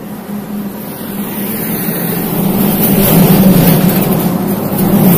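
Two trucks approach on the highway and pass close by without stopping, their engines droning with a rush of tyre and air noise that gets steadily louder over the first three seconds and stays loud.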